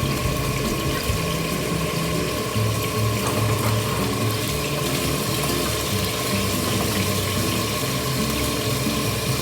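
Pork ribs frying in hot oil in a pot, a steady sizzle.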